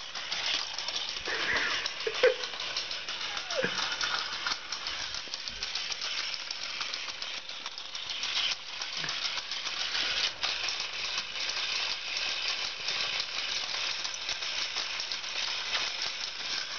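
Motorized plastic toy horse walking on a tiled floor: a continuous fast clicking rattle of its gears and plastic legs, with one sharper click about two seconds in.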